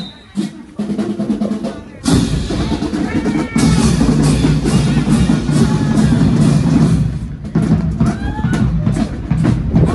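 Marching band drumline playing a fast cadence with bass drum, with low sustained notes underneath and voices calling out over it. It comes in loudly about two seconds in.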